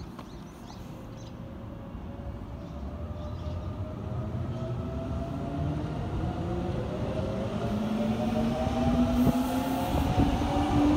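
Tobu 10050-series electric train approaching, its traction motors whining in several tones that rise steadily in pitch as it picks up speed, over a low rumble of wheels on rail, growing louder throughout.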